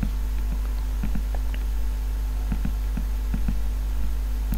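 Steady low mains hum with faint, irregular clicks from a computer mouse being used to draw.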